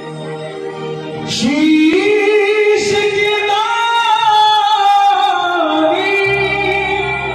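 A male singer's amplified voice drawing out the slow, unaccompanied opening of a Hindi devotional bhajan, holding long notes that slide and bend between pitches. A low instrumental accompaniment comes in near the end.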